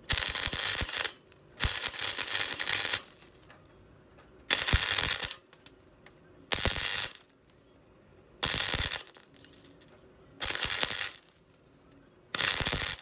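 MIG welder arcing on car body steel in seven short bursts of crackling, about every one to two seconds, the first two longer than the rest. The arc is jittering, which the welder puts down to worn copper contact tips and the torch filling with slag.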